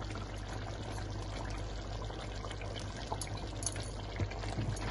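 Lamb curry simmering in a large non-stick pan: a steady bubbling with small scattered pops, over a low steady hum.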